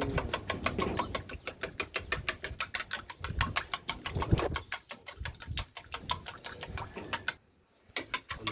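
A spoon or fork clicking rapidly and evenly against a bowl, about six clicks a second, as food is stirred and mixed, broken by a brief pause near the end.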